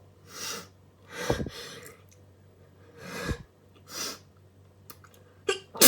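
A person's noisy, gasping breaths, about one a second, as an allergy sneeze builds up. The sneeze itself bursts out right at the end, the loudest sound of all.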